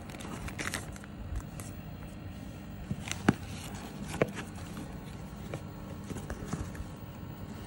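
Cardboard and paper packaging being handled: a smartwatch box slid out of a cardboard shipping box, with scuffing and scattered small clicks and knocks. Two sharper knocks come about three and four seconds in.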